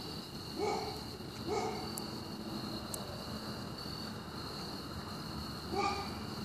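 Dogs barking faintly: two short barks about a second apart, a pause of several seconds, then another bark near the end.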